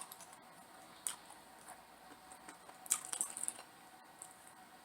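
A person eating close to the microphone: a few short wet clicks and smacks of chewing, about a second in and again in a cluster around three seconds in.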